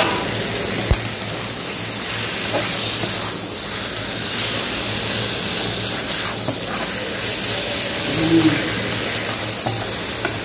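Fish frying in oil and masala in a pan, a steady sizzle.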